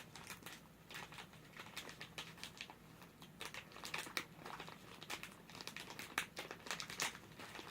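Snack packet crinkling and crackling in the hands, in irregular faint crackles, as it is handled and worked open.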